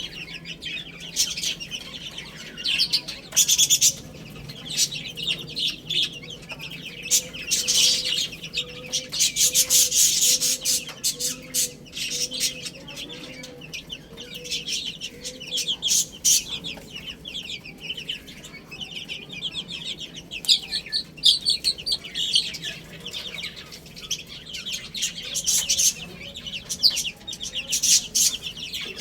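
Young chickens (chicks) peeping in dense, rapid, high-pitched chirps, with a low, evenly repeated clucking joining in for several seconds in the middle.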